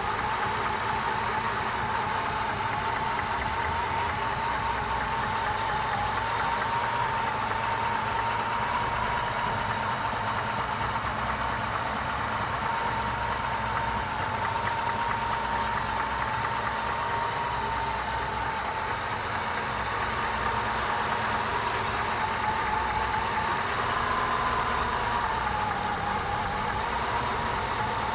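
1997 Lincoln Mark VIII's 4.6-litre DOHC V8 idling steadily, with a high whine held on one pitch that wavers slightly. The engine has a vacuum leak.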